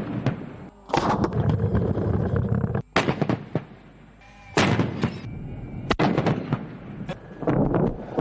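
Gunfire and explosions from a live-fire military exercise. Sharp shots and blasts come at irregular intervals, several of them trailing off in a long rolling echo.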